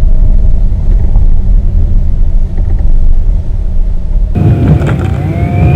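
Car rumbling along a rough dirt trail, heard from inside the cabin: a steady heavy low rumble of engine and road noise. About four seconds in, a brighter hiss joins it, with a whine that rises in pitch.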